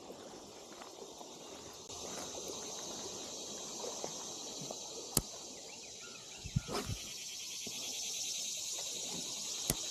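Steady high-pitched insect chirring, which grows louder about two seconds in and again near the end. It is broken by a few sharp clicks and knocks, the loudest around six and a half to seven seconds.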